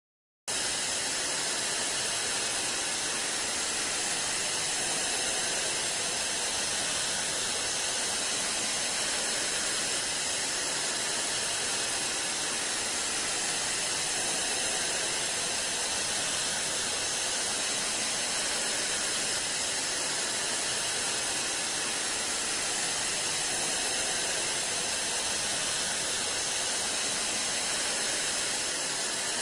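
Steady white-noise hiss of TV static, cutting in suddenly about half a second in and holding even throughout.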